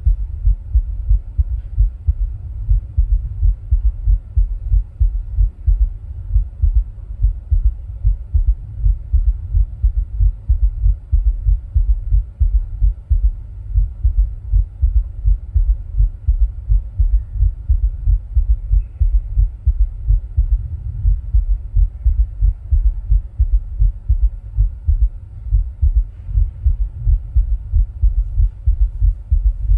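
A person's heartbeat, amplified: an even, continuous run of deep low thuds, beat after beat, over a faint steady hum.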